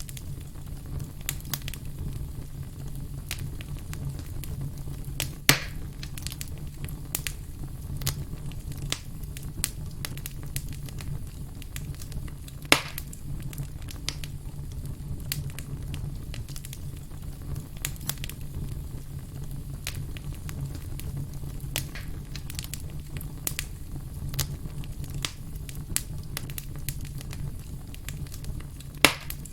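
Wood campfire crackling: many small snaps and pops over a steady low rush of the flames, with three sharper, louder pops spread through.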